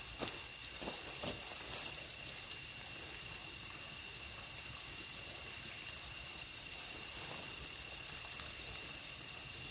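Campfire crackling with a few sharp pops in the first two seconds, over a steady faint high-pitched whine.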